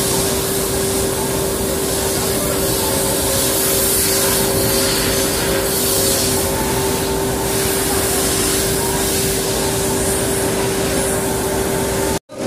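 Cement-bag loading conveyor running steadily, a loud even machine noise with a constant hum, heard from inside the truck body it is loading. It cuts off abruptly just before the end.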